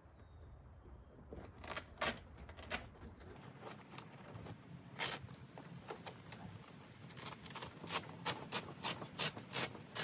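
Irregular sharp clicks and light knocks, a few at first, then coming about three a second in the last few seconds.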